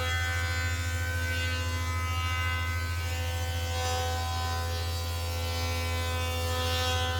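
Electric thickness planer running steadily, its motor giving an even hum with a buzzing overtone.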